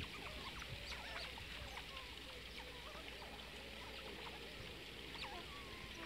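A group of Asian short-clawed otters chirping and squeaking, many short high calls sliding up and down and overlapping.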